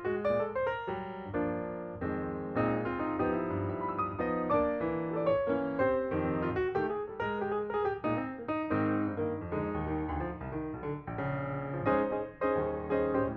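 Background piano music: a lively melody over chords.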